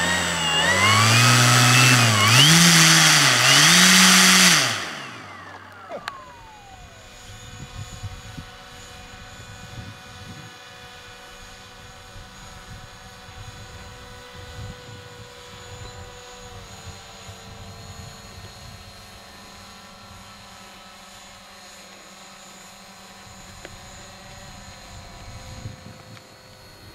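Radio-control model aircraft's motor and propeller, loud and close for about five seconds with the throttle rising and falling several times, then dropping in pitch as it moves away and going on as a faint steady whine.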